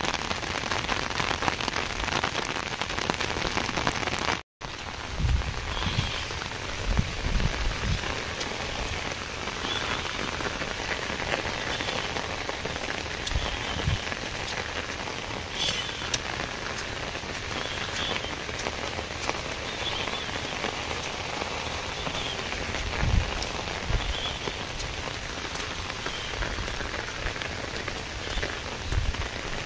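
Steady heavy rain falling on flooded paddy fields, with a few low thumps in places.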